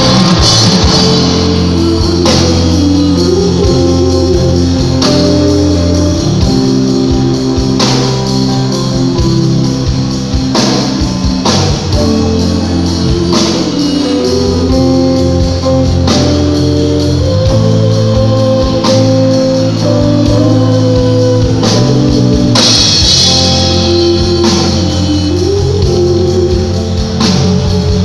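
Live rock band playing amplified electric guitar over a drum kit, loud and continuous.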